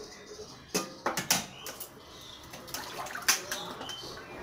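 Sharp knocks and clatters with splashing water as cut fish pieces are handled and washed by hand in a steel bowl: a few loud knocks about a second in, and another cluster a little past three seconds.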